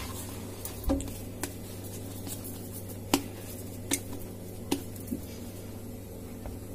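Hands handling pizza dough and flour on a stainless steel plate, with about six light knocks and taps against the metal over a steady low hum.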